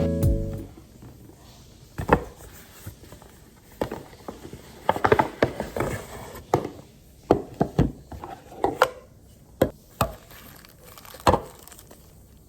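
Irregular sharp knocks and taps on wood, about a dozen spread over several seconds, like utensils and dishes set down on a wooden sushi counter.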